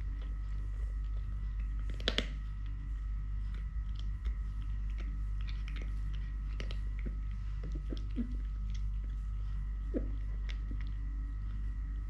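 Kitten chewing and crunching food, in irregular crunchy bites, the loudest about two seconds in.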